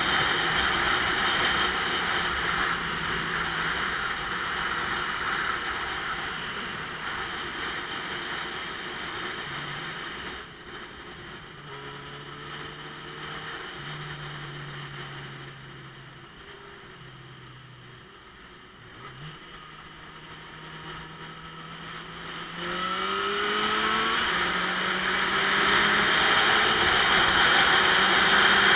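Motorcycle riding in traffic: wind rushes loudly over the camera at speed, then dies down as the bike slows and its engine runs at low, steady revs. About three-quarters of the way through, the engine accelerates with a rising pitch and the wind noise builds again.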